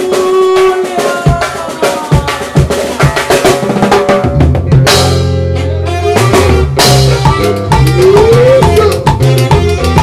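Live band music driven by timbales and cowbell played with sticks, with saxophone and guitar. A low bass line comes in about four seconds in, and a cymbal crashes twice, about five and seven seconds in.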